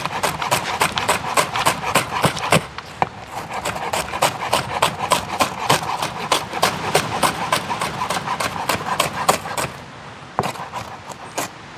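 Kitchen knife chopping vegetables in quick, even strokes, about five a second, each a sharp tap of the blade on the cutting surface. It stops a little before the end, leaving a few scattered taps.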